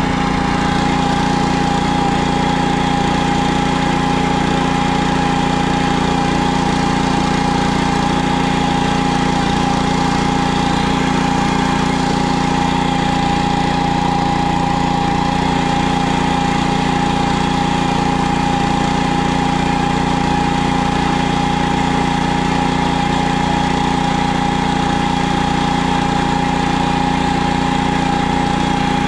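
Engine of a PermaGreen stand-on spreader-sprayer running steadily as it drives across a lawn, with a constant high whine over the engine hum.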